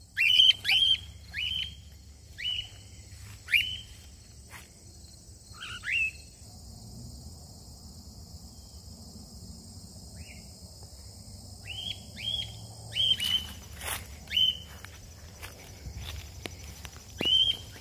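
Cockatiels giving repeated contact calls, short whistled notes that rise and then drop. There is a burst of calls at the start, a quieter stretch in the middle, and a fresh run of calls in the last few seconds.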